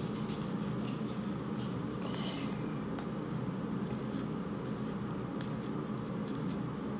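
Baseball trading cards being handled and flipped through one at a time: light, irregular slides and ticks of card stock over a steady low hum.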